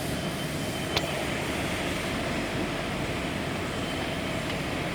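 Steady industrial machinery hum in a fabrication shop, with a single sharp metallic click about a second in.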